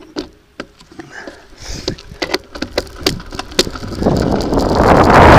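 A bicycle setting off on a loose gravel track: irregular sharp clicks and crunches, then from about four seconds in a rush of wind on the microphone that grows loud and steady as it gathers speed.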